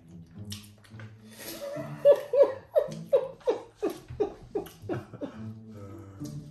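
A woman laughing: breathy giggles, then a run of about ten short falling 'ha' bursts, roughly three a second, that trails off.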